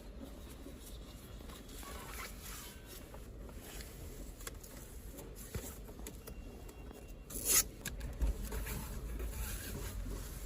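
Quiet handling sounds with soft rustling and small scrapes, and one brief louder scrape about seven and a half seconds in, over a faint low hum.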